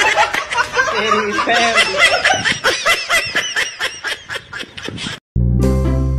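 Rapid high-pitched laughter, a fast run of chuckles that speeds up and cuts off suddenly about five seconds in. Music with plucked strings begins right after.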